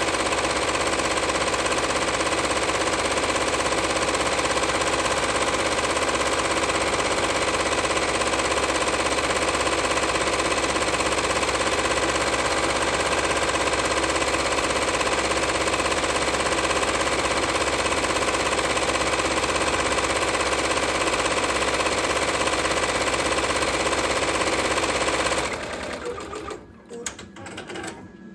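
Multi-needle embroidery machine stitching lettering onto a knitted beanie hat, running at a fast, steady stitch rate. It stops abruptly near the end, once the lettering is finished.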